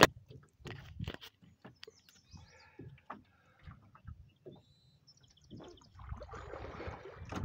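Canoe paddling sounds, scattered light knocks and water drips, with a bird chirping in short high notes a little past halfway. Splashing water noise swells near the end.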